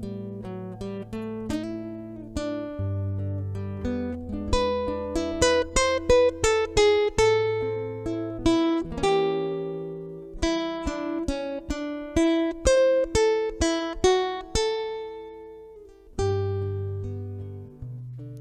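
Acoustic guitar playing an instrumental passage: a melody of single plucked notes, each ringing out and fading, over held low bass notes, with no voice.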